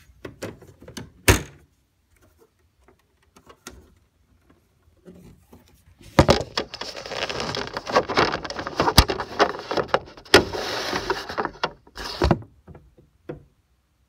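Handling noise close to the microphone. A few sharp clicks come first, then about six seconds of rustling and clattering with many clicks, ending with one more click near the end.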